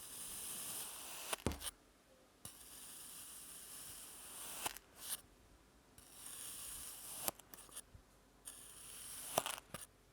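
Kinetic sand being sliced with a blade: four slow cuts, each a grainy, crunching hiss lasting a second or two. Each cut ends in one or two sharp clicks.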